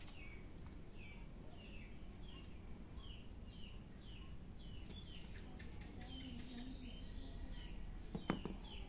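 A bird calling over and over, short falling chirps about twice a second, over faint background noise. A brief sharp sound comes near the end.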